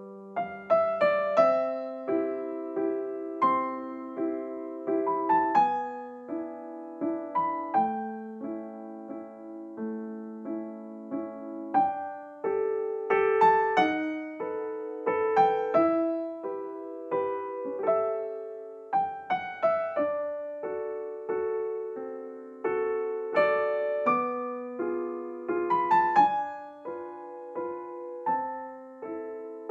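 Slow, gentle solo piano music: a melody of single notes over sustained chords, each note struck and fading.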